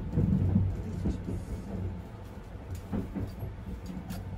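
Sunrise Seto sleeper train (285-series electric train) running, heard from inside a private compartment: a steady low rumble and hum, with a couple of sharp clicks from the wheels and car body near the end.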